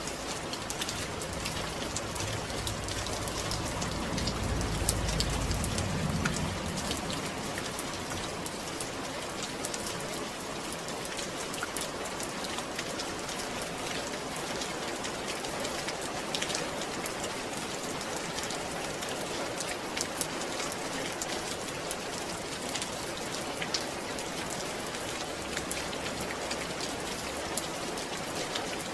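Steady rain falling, an even hiss dotted with the fine ticks of individual drops. A low rumble swells and fades about four to six seconds in.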